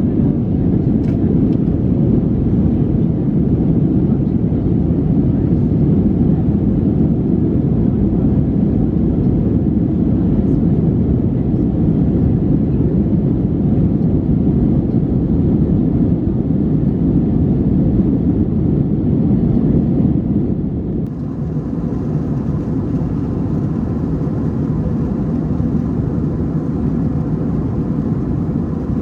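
Steady in-flight cabin noise of an Airbus A321-211 after take-off: the low drone of its CFM56 engines mixed with airflow rush. About two-thirds of the way through, the sound turns slightly quieter and changes abruptly.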